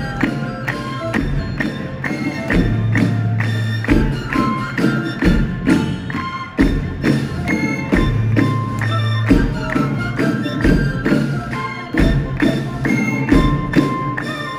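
Live music for a dance of festival giants: drums beat a steady rhythm under a pitched melody, with a sustained low bass note coming and going.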